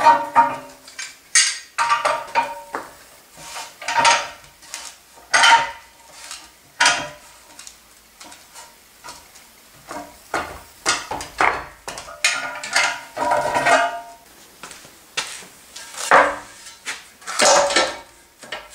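Cast iron radiator sections and metal tools clanking against each other during reassembly. Irregular sharp metallic knocks come roughly every second, and several ring on briefly.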